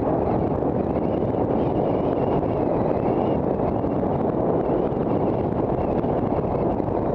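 Steady wind rush on the microphone of a camera on a moving bicycle, mixed with city traffic noise.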